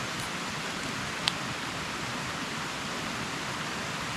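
Steady rush of a stream's flowing water, with a single short click a little over a second in.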